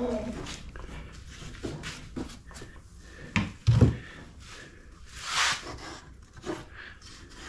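Handling noises from a sand muller and molding sand: small clicks and scrapes, two sharp knocks close together near the middle, then a short scraping rush about two-thirds of the way through.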